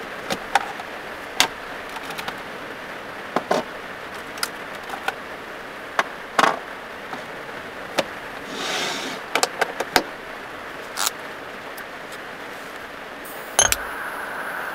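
Small objects handled on a wooden counter inside a small car: scattered clicks and taps of a plastic box and a glass candle holder being picked up and set down, with a louder knock near the end. Underneath runs a steady hiss of rain on the car.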